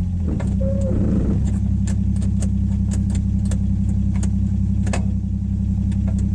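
1962 Rambler Classic's six-cylinder engine running steadily, its note shifting about half a second in, with scattered light metallic clicks and rattles over it.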